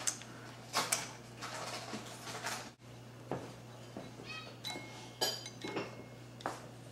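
Small metal clicks and clinks of an Allen key and small parts against the metal rotor head of an RC helicopter, several separate ticks, a few of them ringing briefly, over a steady low hum.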